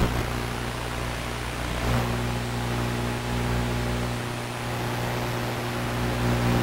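Steady hum from a Blade 350QX3 quadcopter's motors under a constant hiss, as heard through an analog 5.8 GHz FPV video link. The hum swells briefly about two seconds in.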